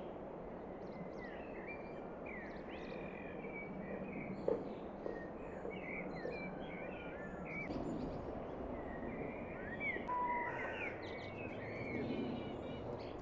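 Several small songbirds chirping and twittering, many short quick notes and glides, over a steady outdoor background hiss.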